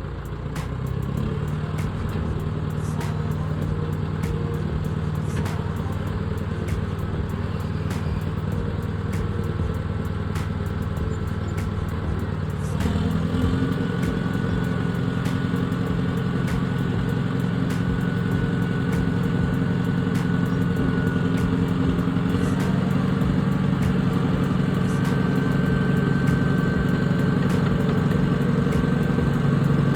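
Diesel engine of heavy earthmoving equipment running steadily. It speeds up about halfway through and shifts again a few seconds later, with a thin whine above it from then on.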